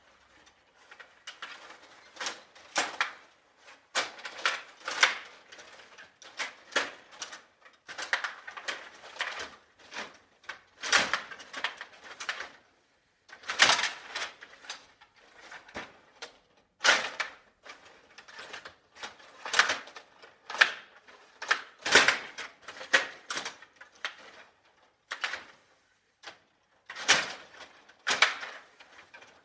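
Stiga Play Off table hockey game in play: rods rattling and plastic players and puck clacking in quick irregular runs, with sharper single knocks every few seconds.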